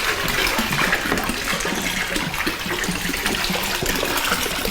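Several containers of drink pouring at once into a kitchen sink already full of liquid: a steady splashing gush.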